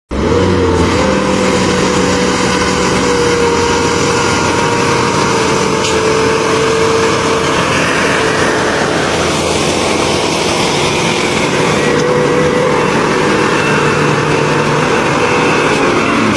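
Road construction machinery running steadily: loud, even engine and mechanical noise with a few held tones that drift slightly in pitch.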